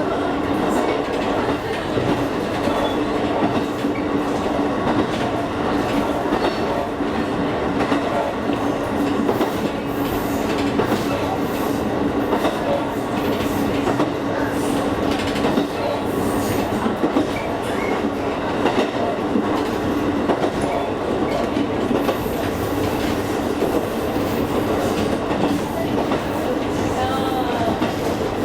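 Kakogawa Line electric local train running along the track, heard from inside the carriage: a steady rolling rumble with a steady hum and light clicks of the wheels over rail joints.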